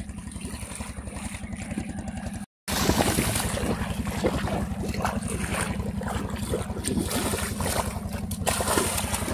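Shallow river water splashing as a child wades, runs and grabs at it with his hands, over a steady low engine-like drone. The sound drops out briefly about two and a half seconds in.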